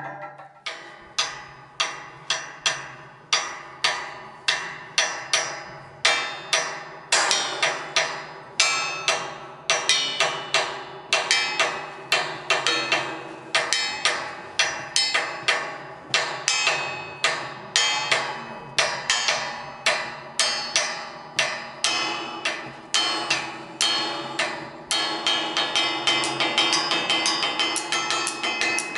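A metal sound sculpture in the Baschet manner, a frame of metal bars mounted on an upright resonator box, struck with mallets: a steady run of strikes, about two a second, each ringing and dying away. In the last few seconds the strikes quicken into a fast roll.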